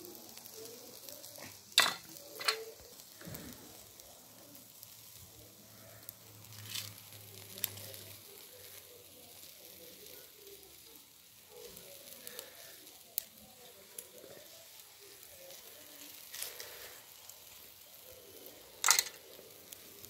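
Chicken skewers sizzling over a charcoal grill, with a faint steady crackle and a few sharp knocks, the loudest about two seconds in and near the end.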